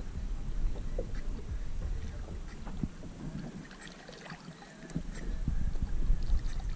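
Wind rumbling on the microphone over water lapping and small splashes at the side of a boat, as a hand releases a muskie into the lake. The rumble drops away for a couple of seconds in the middle.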